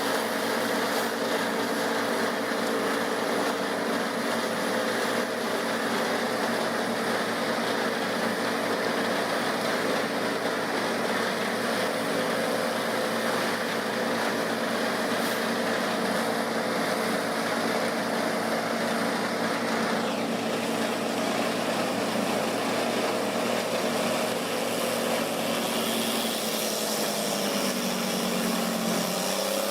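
A machine's engine running steadily under load with a harsh mechanical hiss. The hiss drops away about two-thirds of the way through, and the engine's pitch sags near the end.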